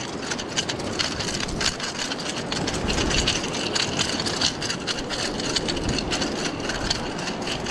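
Surf washing over a rocky shore: a steady rushing noise with a low rumble, with many scattered short clicks and knocks throughout.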